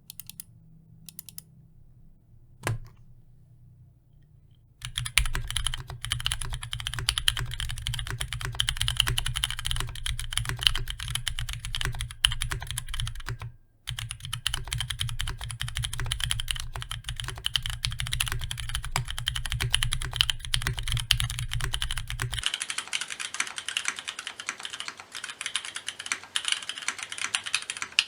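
Typing on a custom mechanical keyboard with Cherry MX Ergo Clear tactile switches on a steel plate in a top-mounted steel case. A few lone keystrokes come first, then steady continuous typing with a short pause about halfway through. A low hum runs under the typing until about two-thirds of the way in.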